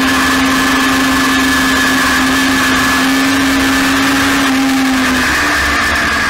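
Toyota 4A-GE twin-cam four-cylinder engine of an open-cockpit Clubman race car running hard at high, steady revs, heard from an onboard camera with heavy wind noise. The engine pitch climbs slightly, steps up about five seconds in, then starts to fall near the end.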